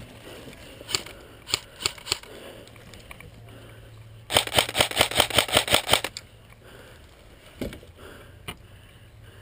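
Airsoft electric rifle firing a full-auto burst of about two seconds: a rapid, even string of sharp clicks, a little past the middle. A few separate sharp clicks come before it, and two more follow.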